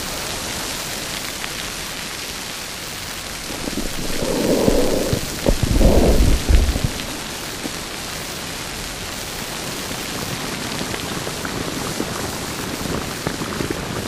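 Sci-fi alien-planet nature ambience: a steady hiss like heavy rain. Between about four and seven seconds in it swells louder twice, with a deep rumble underneath.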